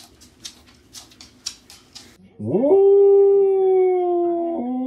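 A Samoyed howls: after a run of light clicks, one long howl begins about two and a half seconds in, rising and then held at a steady pitch, with a brief break near the end.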